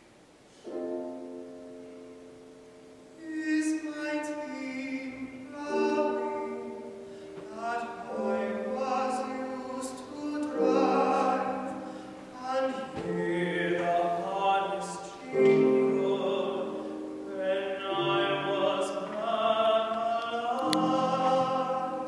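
Young classical tenor singing an English art song with grand piano accompaniment. The piano starts alone about a second in, and the voice enters a couple of seconds later.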